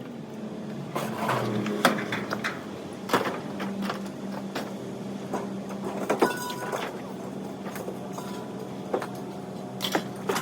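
Scrap aluminum being offloaded: scattered metallic clanks and knocks as pieces are thrown onto a pile, over a steady engine hum.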